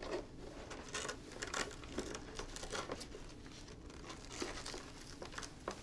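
Faint, irregular rustling and crinkling of a respirator's fabric shroud being handled, as straps are fed through loops inside it.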